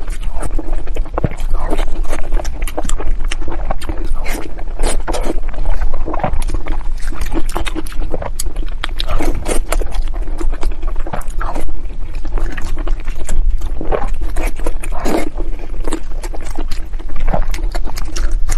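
Close-miked chewing and wet lip-smacking on soft, fatty glazed pork belly: a dense run of sticky mouth clicks and squelches that never lets up.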